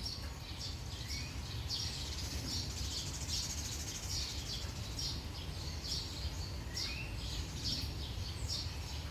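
Small birds chirping repeatedly in short high notes, with a couple of brief rising calls, over a steady low rumble of background noise.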